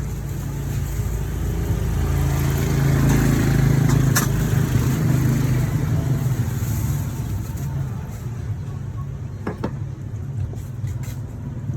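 A low motor hum that swells louder over a few seconds and then eases off again, with a sharp click about four seconds in and another near ten seconds.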